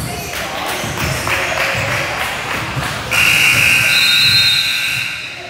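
A gym scoreboard buzzer sounds steadily for about two seconds, starting about three seconds in, over general crowd and court noise.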